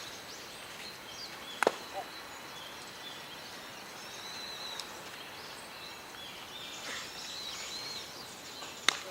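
Outdoor ballfield ambience with two sharp smacks of a baseball in play, one about a second and a half in and one near the end, over faint high chirping.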